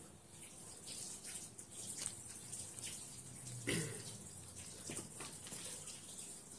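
Tissue rubbing and rustling against a kitten's face and fur as its eyes are wiped clean, a run of short scratchy swishes over a faint hum. A louder, sharper handling sound comes a little past halfway.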